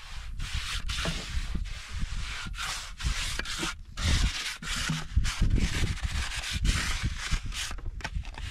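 A hand trowel scraping and smoothing wet cement on a floor screed, in repeated rasping strokes at about two a second.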